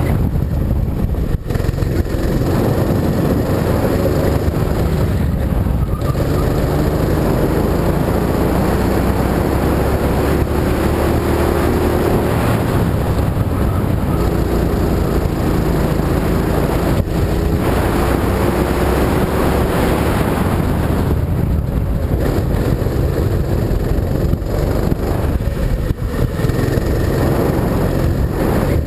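Go-kart engine running hard through a lap, its pitch rising under acceleration and dropping as it eases off for corners, over a constant low rumble from the ride.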